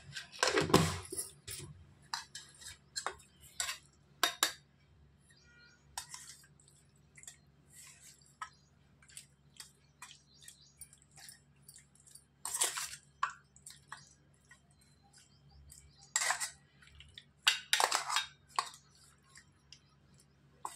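Kitchen utensils clinking and scraping against a dish as chicken is mixed with salt and ginger-garlic paste. Scattered light clinks run throughout, with a few louder scraping strokes near the start and again in the second half.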